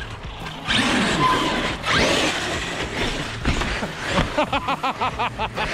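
Electric RC monster trucks running on skatepark ramps: motors whining up and down with the throttle, tyres scrubbing, and a few knocks. In the second half a whine wavers quickly several times a second.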